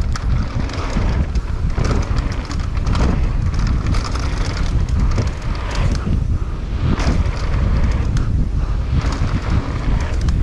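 Wind buffeting the microphone of a camera on a mountain bike riding fast down a dirt trail, with the rattle and knocks of the bike and its tyres over bumps.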